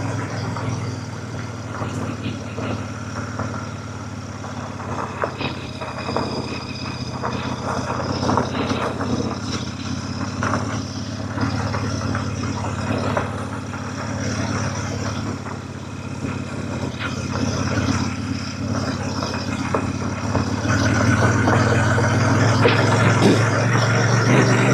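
Royal Enfield Super Meteor 650's parallel-twin engine running steadily as the motorcycle rides a rutted dirt and loose-shale track, with many small clicks and knocks from the tyres on loose stones. The engine gets louder about twenty seconds in.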